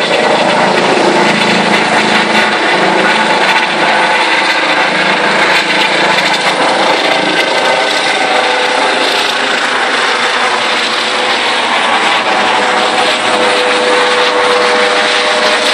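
Helicopter flying overhead shortly after take-off, its rotors and engine making a loud, steady noise that holds level throughout.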